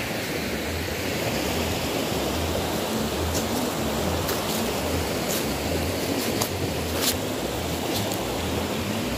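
Waterfall on a river, a steady even noise of falling water, with a few faint ticks.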